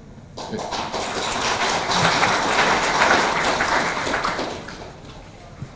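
Audience applauding, starting about half a second in, swelling to its loudest around three seconds, then fading out.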